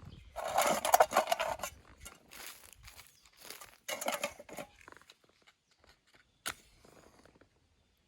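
Rustling and crackling handling noises in irregular bursts, from dry sticks, leaves and paper being laid in the Kelly Kettle's fire base. A single sharp click about six and a half seconds in.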